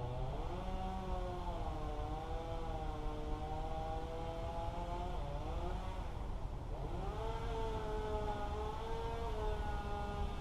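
An engine running steadily at high speed. Its pitch sags and recovers as if under load, briefly near the start and more deeply about six to seven seconds in.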